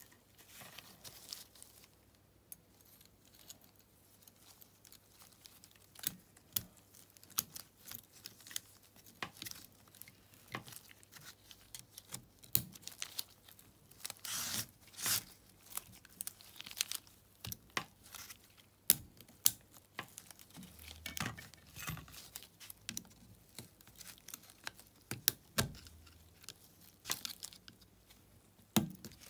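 A large steel circlip being worked into its groove on a small ATV clutch assembly with a screwdriver: irregular metallic clicks, taps and short scrapes, with a louder cluster about halfway through.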